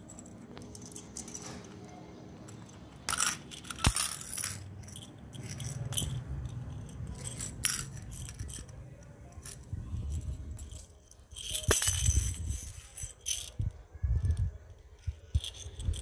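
Hollow plastic jingle-ball toys rattling and jingling in irregular bursts as Alexandrine parakeets shake them in their beaks, with a couple of sharp clicks.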